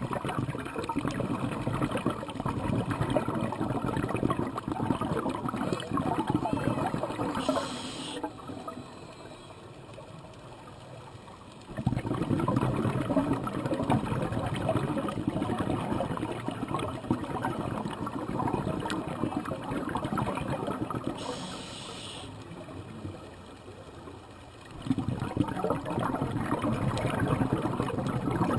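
Scuba diver breathing on a regulator underwater, heard from the camera. Long stretches of crackling, bubbling exhaust bubbles come with each exhalation, and a short hiss of inhalation comes through the regulator twice.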